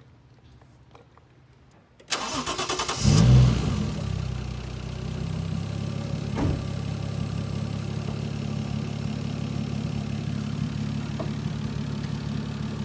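Toyota 1JZ VVT-i inline-six being started: the starter cranks it for about a second, it catches with a brief rev flare, then settles into a steady idle.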